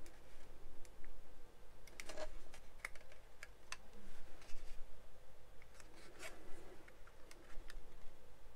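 Light, irregular clicks and taps of a plastic model kit fuselage being handled and set down on a cutting mat.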